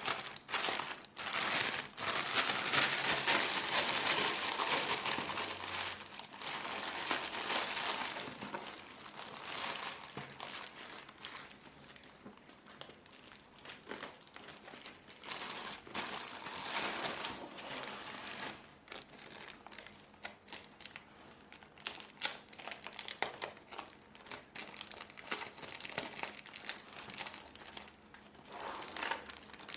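Plastic packaging crinkling and rustling as it is handled and unwrapped, with many small sharp crackles. It is densest and loudest for the first several seconds, then turns into scattered, quieter crinkles.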